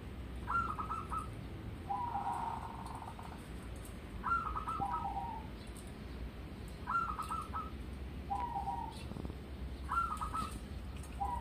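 Zebra dove (perkutut) cooing its song: four repeated phrases about three seconds apart, each a quick stuttering run of higher notes followed by a lower rolling coo.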